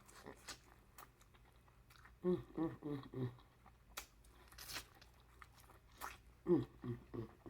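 Close-miked eating from a seafood boil: chewing with a few sharp crunches and clicks, the clearest about four seconds in. Short hummed voice sounds come in between.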